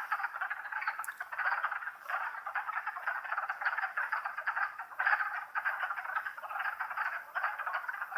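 Wood frog chorus: many frogs calling at once with short, overlapping clucking croaks that swell and ebb without a break.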